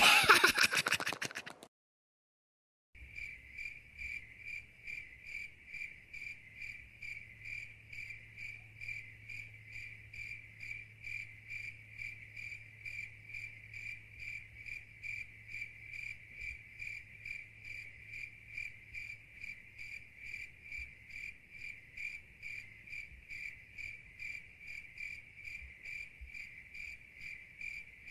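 A cartoon voice ends in the first second or so, then after a brief silence cricket chirping starts about three seconds in: a steady, even chirp repeated about two to three times a second. It is the stock 'crickets' comedy sound effect that marks an awkward silence.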